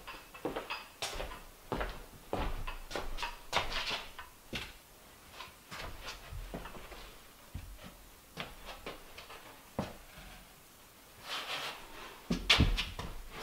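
Irregular wooden knocks, clatters and creaks as a cabinet frame of light lumber is handled, lifted and tipped upright onto a wood floor. The loudest knocks come near the end as it is set in place.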